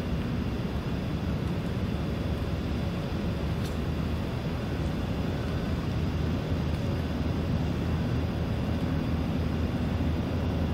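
Strong wind buffeting the microphone: a steady, gusting low rumble.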